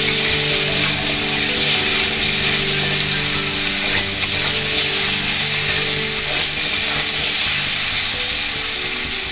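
Diced potatoes frying in mustard oil in an aluminium kadai, giving a steady loud sizzle, while a metal spatula stirs and scrapes them around the pan.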